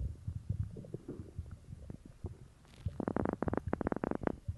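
Human stomach gurgling and rumbling after drinking cola: low uneven rumbles, then a quick run of bubbly pops about three seconds in.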